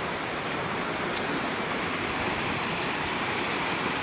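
Small river flowing over stones, a steady rushing of water.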